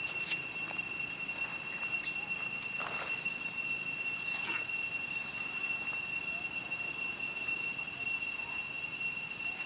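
Steady high-pitched insect drone at one unchanging pitch, with a few faint brief rustles.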